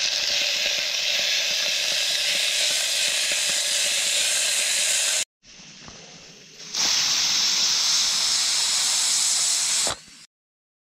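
Steam hissing steadily from the weight valve of an aluminium pressure cooker under pressure. The hiss is loud; it drops to a quieter level about five seconds in, comes back at full strength about two seconds later, and cuts off abruptly shortly before the end.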